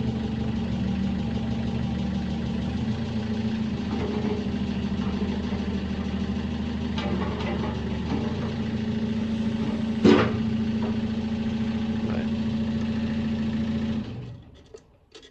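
Mini excavator's diesel engine, which the owner believes is a Mitsubishi K4E, idling steadily. One sharp knock about ten seconds in, and the engine sound cuts off abruptly near the end.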